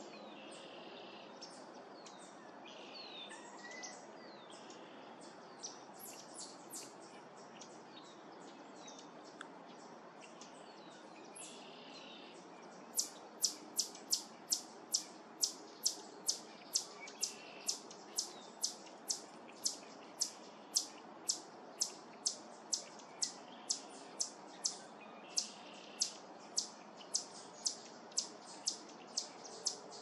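Wild birds calling: a few high, down-slurred calls and short buzzy calls. Then, from about halfway through, one bird repeats a sharp, high chip note about twice a second.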